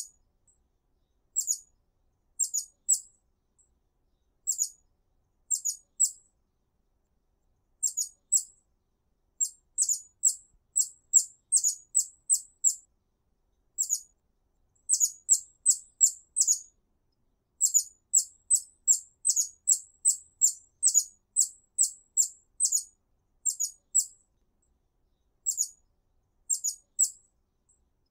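Hummingbird giving sharp, high-pitched chip notes, singly and in quick runs of two to five, separated by short silent gaps. The chips come thickest from about the middle of the stretch on.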